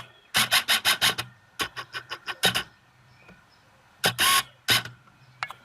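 Packaging being handled and opened: quick runs of sharp crinkles and clicks about half a second in and again around two seconds in, then a few louder rustles about four seconds in.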